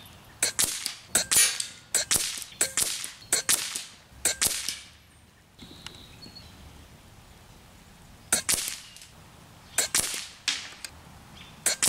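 AGT Vixen PCP air rifle firing a string of shots: sharp cracks coming mostly in close pairs about a quarter second apart, several pairs in the first five seconds, then a pause of about three seconds and a few more near the end.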